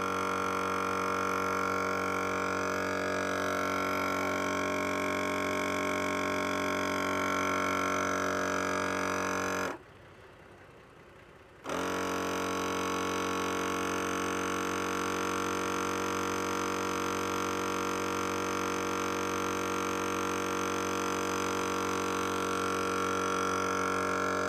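EZ Flate M.O.A.B. twin-cylinder air compressor running steadily with a droning hum while it inflates the tyres. About ten seconds in it cuts out abruptly for about two seconds, then restarts; the auto-inflate system is pausing to check tyre pressure.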